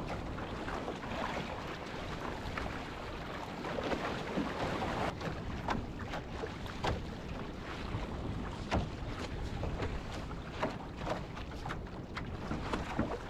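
Wind buffeting the microphone over a steady rush of choppy sea, with frequent sharp slaps and splashes of waves against a small boat's hull.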